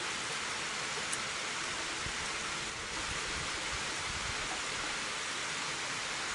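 A steady, even rushing noise with no speech, and a faint tick about a second in.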